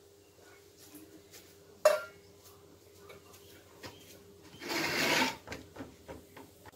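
A stainless-steel bowl set down on a concrete floor with one sharp metallic clank, about two seconds in. About three seconds later comes a short rushing hiss lasting under a second, then a few faint knocks.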